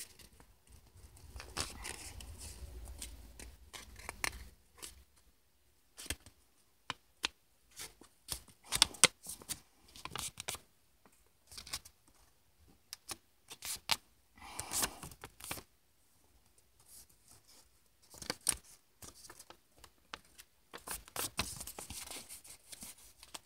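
A sheet of paper being folded and creased by hand, with irregular crackles and rustles.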